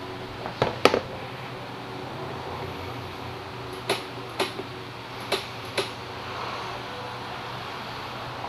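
Sharp knocks and clicks at a scooter's handlebar as new grips are fitted and the throttle grip is worked: two loud knocks about a second in, then two pairs of clicks each about half a second apart, over a steady fan hum.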